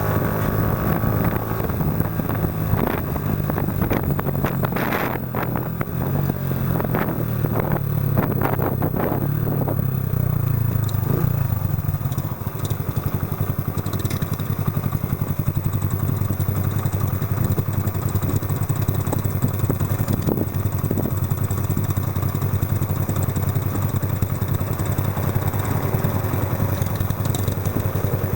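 Yamaha Factor 125's single-cylinder four-stroke engine running through an aftermarket Roncar aluminium exhaust. The engine note rises and falls through the first half, then holds steady.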